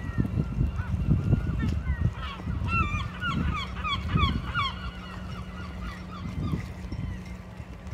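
A flock of birds calling: many short calls that bend up and down in pitch, crowding together in the middle, over a low, irregular rumble.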